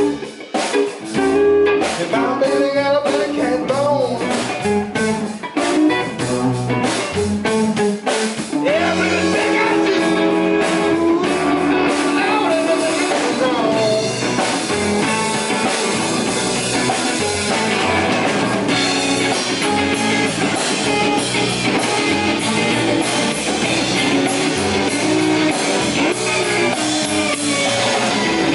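Live blues band playing: electric guitar over electric bass and drum kit.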